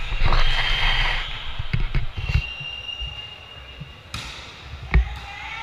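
Volleyball being played on a sports-hall wooden floor: the ball is struck and thuds several times, with a loud thump about five seconds in and a brief high squeak near the middle, all echoing in the large hall.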